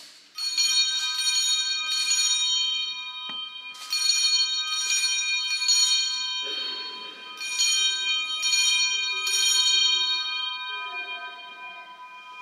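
A cluster of altar bells shaken during the blessing with the Blessed Sacrament, rung in three groups of quick shakes whose ringing dies away near the end.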